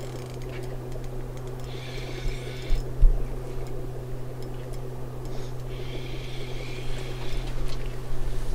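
Boat motor running with a steady low hum. A higher whirring comes and goes in stretches of one to two seconds, and there is a single knock about three seconds in.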